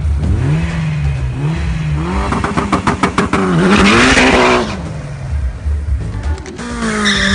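Turbocharged Mitsubishi Lancer Evolution VII 4G63 four-cylinder engine revving up and down, then popping and crackling rapidly about two seconds in. It is followed by a loud rush of noise as the car spins its tyres in a burnout, and the engine is held at a steady pitch near the end.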